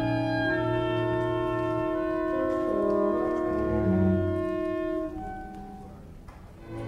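Orchestra playing slow, held wind and brass chords over a shifting low line. The sound dies away about five seconds in, and the orchestra comes back in just before the end.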